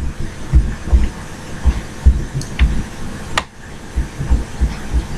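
A run of dull low thumps, irregular at about two a second, with a few sharp computer-mouse clicks in between, the clearest about three seconds in.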